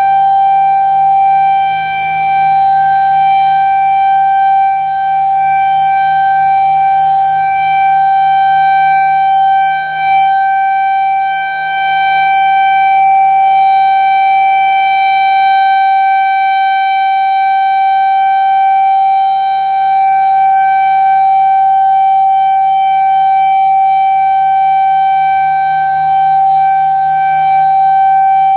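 Federal Signal Thunderbolt 1000 outdoor warning siren sounding its one-minute alert: one steady, high-pitched tone with overtones, held without a pitch change and dipping only slightly in level.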